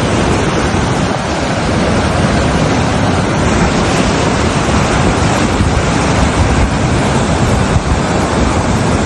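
Steady, loud rush of overflowing floodwater from a swollen river.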